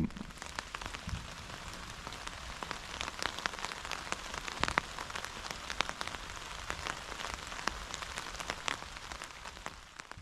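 Steady rain falling, with many separate drops striking sharply close by.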